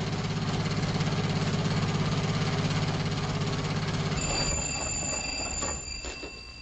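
Radio-drama sound effect of a car engine running with a fast, even chugging pulse, fading out after about four and a half seconds. A thin high ringing tone comes in near the end.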